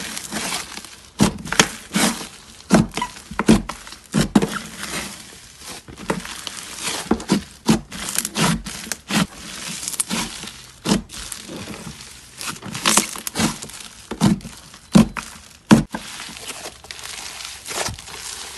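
Slime being squeezed and pressed by hand, giving an irregular run of sharp pops and crackles, a few louder than the rest.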